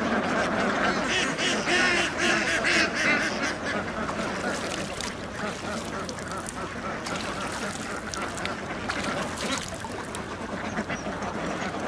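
A large flock of domestic ducks quacking all at once, a dense chorus of overlapping calls that is loudest in the first few seconds and eases off a little after.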